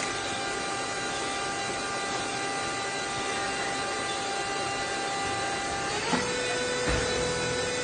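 Parts-feeder bowl and chute of a CNC lathe auto-loader running, with aluminium pulley blanks rattling and sliding along over a steady machine hum. A thin whine drops to a lower pitch about six seconds in, with a sharp click at that moment and a knock about a second later.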